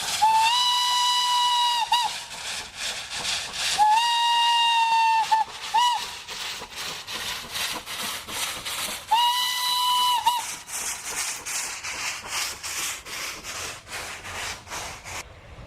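Steam locomotive whistle sounding three long blasts, the first two each followed by a short toot, over the locomotive's steady chuffing exhaust beat.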